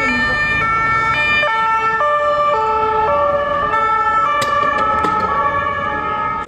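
Two-tone police sirens, more than one at once and out of step, each alternating between a high and a low note about every half second.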